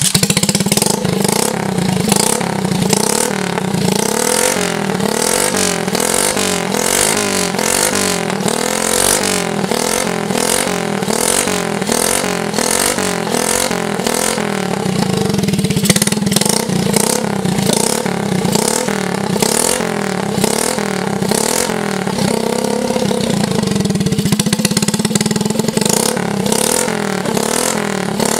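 Suzuki Smash's single-cylinder four-stroke engine catching on a kick start and running loud on its stand through a makeshift exhaust, revved up and down repeatedly. It is the rebuilt junk engine's first sound check after its cam chain was tightened, and the engine sounds smooth.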